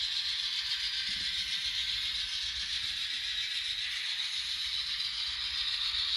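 Digital diesel sound of an N scale GE Dash 9 model locomotive's LokSound decoder, played through the model's tiny speaker as the engine runs on the layout. It is a steady, thin engine sound with no deep bass.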